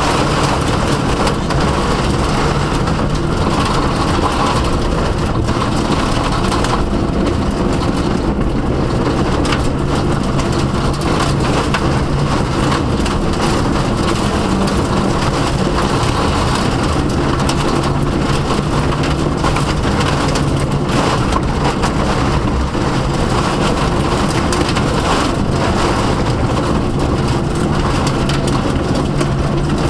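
Subaru Impreza WRX STI rally car's turbocharged flat-four engine running hard at racing speed, heard from inside the cabin, its pitch rising and falling through the run. Over it there is a dense, steady rush of tyre and road noise.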